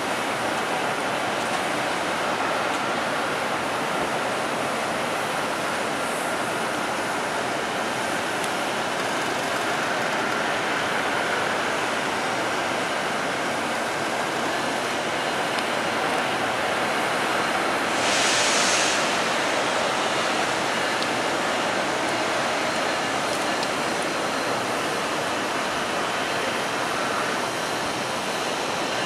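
VIA Rail passenger train of LRC cars rolling slowly into the station: a steady rumbling roar, with a brief hiss about two-thirds of the way through.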